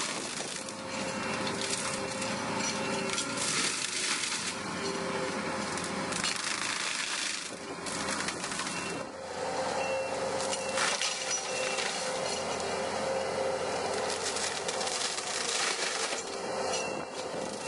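Skid-steer-mounted Seppi MIDIFORST forestry mulcher running, its rotor chewing up wood with a steady hum and a constant crackle of splintering and crushing.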